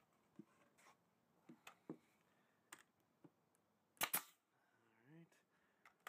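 Light scattered clicks and taps from a small wooden box being handled and fitted together, with one sharper knock of wood about four seconds in.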